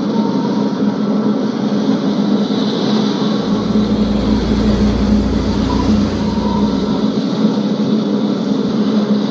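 Steady engine drone of a fishing boat, with a deeper rumble that swells for a few seconds in the middle.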